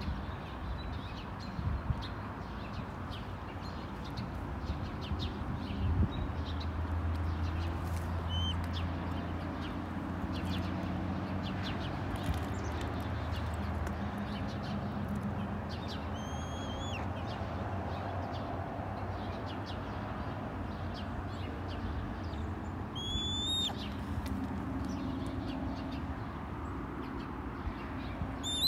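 Red-tailed hawk giving a few short, high begging calls several seconds apart, each with a quick rise and fall in pitch, over a steady low background rumble.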